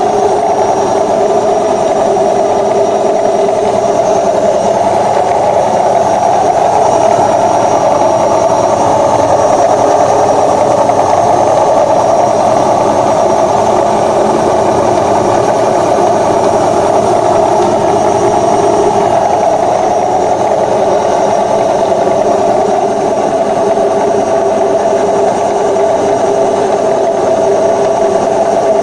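Indesit WIE87 washing machine on its spin cycle, giving off a loud, steady drone. The noise comes from a worn bearing on the tub.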